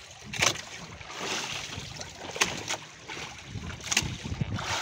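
Choppy sea water rushing and sloshing along an outrigger boat's bamboo floats, with several sharp slaps as waves hit the floats and throw up spray. Wind buffets the microphone.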